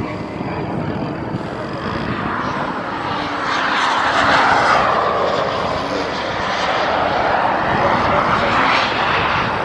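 Flex Innovations Cessna 180 RC floatplane's motor and propeller heard flying overhead, a steady rush that swells loudest about four to five seconds in and again near the end as it passes.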